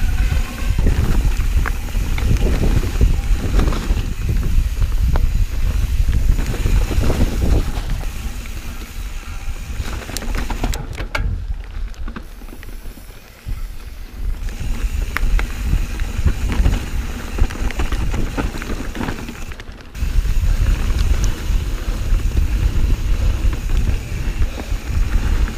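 Wind buffeting the action camera's microphone as a mountain bike rolls fast down a dirt trail, a loud low rumble with scattered clicks and rattles from the bike over rough ground. The rumble drops back about eleven seconds in and returns loud near twenty seconds.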